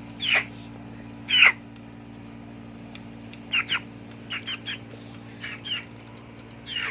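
A chicken giving a string of short, sharp squawks that slide steeply down in pitch: two loud ones in the first second and a half, then quicker runs of shorter, softer squawks, often in pairs.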